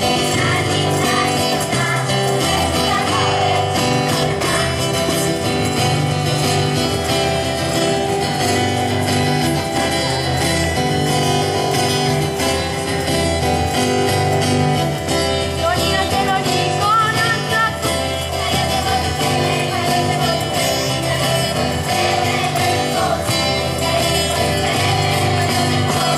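A group of young people singing a song together, accompanied by an acoustic guitar.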